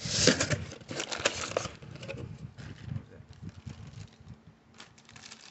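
Cardboard box and its white foam packing insert being handled: a burst of rustling, scraping and clicks in the first second and a half, then lighter scattered rustles that thin out near the end.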